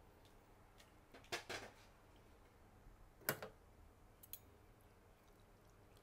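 Metal spoon and fork clinking as they are picked up and put into a bowl of noodle soup: a short cluster of light clicks about a second and a half in, the sharpest click a little after three seconds, and a small one a second later, over a faint steady low hum.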